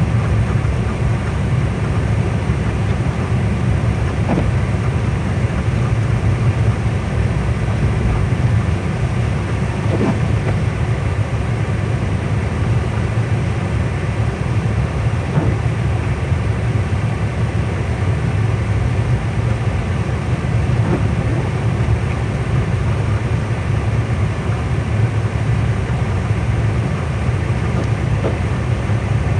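Steady low rumble of a car driving, engine and tyre noise on a snowy, icy road heard from inside the cabin. A few faint brief sounds come every five or six seconds.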